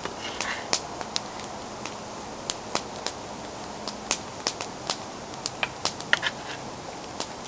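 Wood campfire crackling: irregular sharp pops and snaps over a soft steady hiss.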